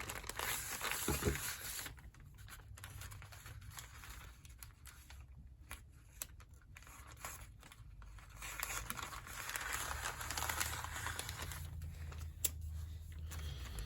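A shipping package being torn open and its packaging crinkled and rustled by hand. The rustling comes in uneven spells, quieter in the middle with a few small clicks, and grows busier near the end.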